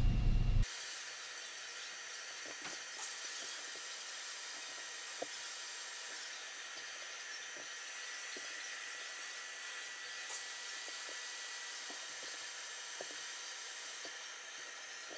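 A steady, faint hiss with a few faint clicks scattered through it.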